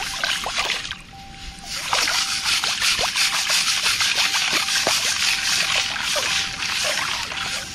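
Water sloshing and splashing as a round metal sieve of river sand and gravel is shaken and swirled in shallow river water, with a dense gritty hiss of gravel washing in the mesh. It dips briefly about a second in, then carries on loud.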